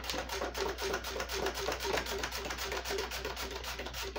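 A red onion being slid back and forth over the blade of a handheld plastic slicer, making a quick, even run of slicing strokes, about five a second.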